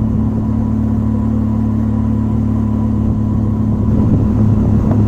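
Honda CB Trigger's 150 cc single-cylinder engine running at a steady pitch as it pulls the motorcycle and a pillion uphill at about 15,500 feet, where the thin air leaves the engine short of oxygen and power.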